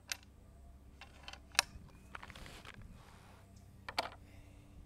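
Small sharp clicks and a brief rustle as a .452 big-bore PCP air rifle is handled: the action worked and a pellet loaded. The sharpest click comes about a second and a half in, another near the end.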